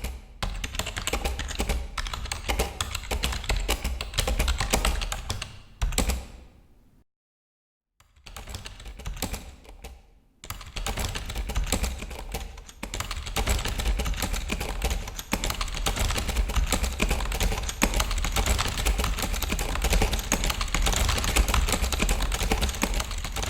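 Fast typing on a computer keyboard: a dense run of key clicks. It breaks off into silence for about a second around seven seconds in, then picks up again and runs on steadily.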